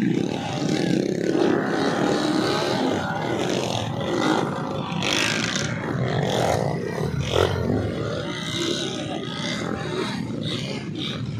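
Dirt-bike engines revving hard as the bikes churn through deep mud.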